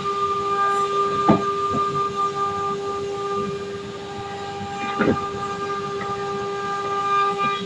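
CNC engraving router running, its spindle giving a steady high whine over a cutting hiss, with a few short knocks.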